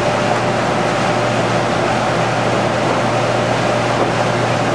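TS Manufacturing Baby Blu lumber coater running: a loud, even machine noise with a constant low hum and a fainter steady higher tone.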